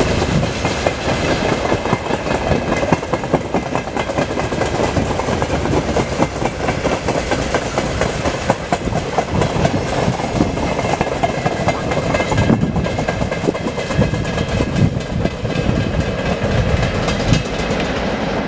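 Freight train of open-top and covered wagons rolling past, its wheels clattering over the rail joints in a dense, continuous clickety-clack over a steady rumble.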